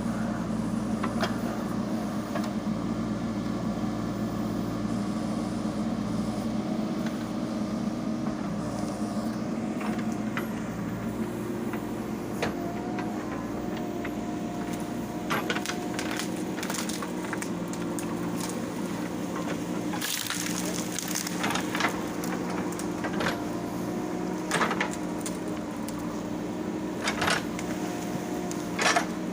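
JCB 3DX Super backhoe loader's diesel engine running steadily, its pitch shifting a couple of times as it works. In the second half, several sharp cracks and knocks sound over it.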